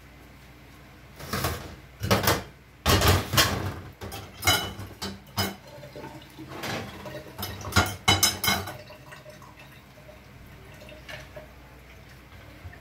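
Kitchenware being handled: a metal frying pan, plates and cutlery clatter and clink in a string of sharp knocks for several seconds, then it settles to a few faint taps.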